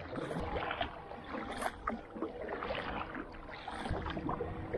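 A kayak moving through calm water: water lapping and trickling along the hull, with small scattered knocks and clicks.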